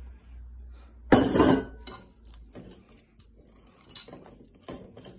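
Metal wire whisk clinking and scraping against a glass mixing bowl while milk is whisked into waffle batter, with one louder clatter about a second in and scattered lighter clicks after it.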